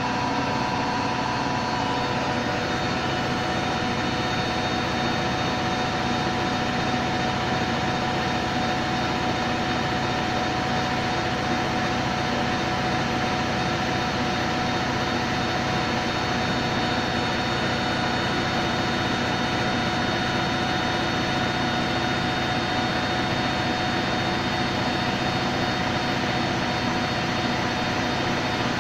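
Hoover Electronic Automatic de luxe washing machine on its spin-dry cycle: the motor and drum running at speed with a steady whine of several held tones over a rushing noise.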